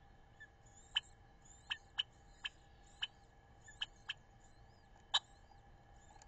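Faint high chirps of small birds over a steady electrical hum, broken by about eight short, sharp clicks at uneven intervals, the loudest about five seconds in.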